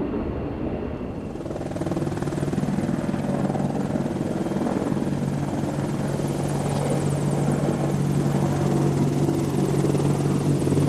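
Helicopter running, getting louder from about a second and a half in, a steady low hum with a fast, even beating over it.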